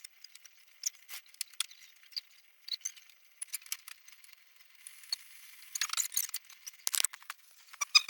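Scattered light metallic clicks and clinks of dent-repair tools, with a denser burst of clinking about six and seven seconds in.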